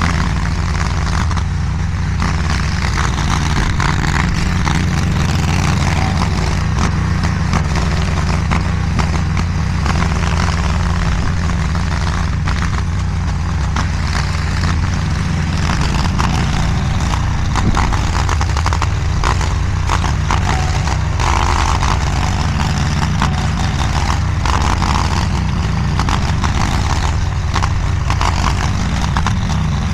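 DIGGIT SCL850 stand-behind mini skid steer running steadily at working speed, its engine drone overlaid by continuous clatter and scraping from the machine at work.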